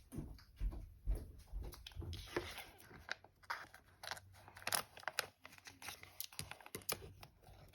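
Plastic toy packaging crinkling and crackling in someone's hands, with short tearing sounds as they struggle to open it.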